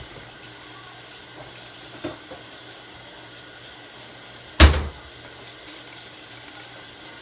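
Kitchen faucet running steadily into a sink, with a small click about two seconds in and one loud, sharp knock a little past halfway.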